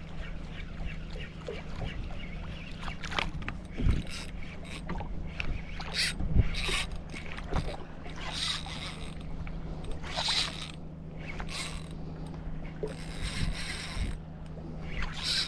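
Boat's motor running at idle with a steady low hum, under scattered knocks and several short bursts of hiss.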